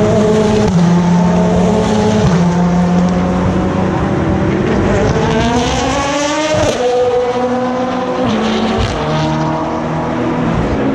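Race car engines, several in turn, running through a slow corner. One engine climbs in pitch and then drops sharply as it passes about six and a half seconds in, and others step up through the gears as they accelerate away.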